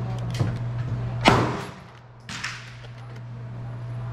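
Three gunshots at a shooting range, the loudest about a second in, with fainter reports just before and after, each ringing out briefly. A steady low hum runs underneath.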